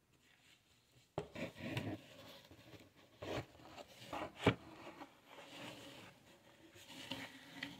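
Boxed card decks being handled and slid around inside a cardboard shipping box, rubbing and scraping against the cardboard, with a few short knocks. The sharpest knock comes about halfway through.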